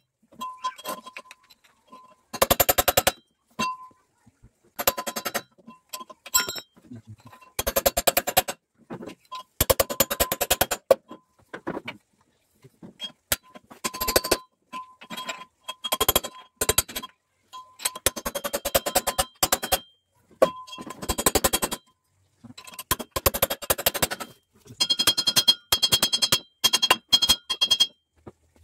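Hammer striking the metal flywheel end of a small single-cylinder air-cooled engine, in repeated bursts of rapid blows with a metallic ringing tone between them.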